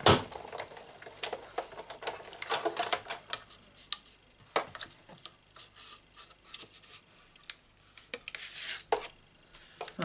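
Hand-cranked Sizzix Big Shot die-cutting machine feeding a die and cardstock between plastic cutting plates through its rollers, with irregular clicks, knocks and rubbing from the crank and the plates.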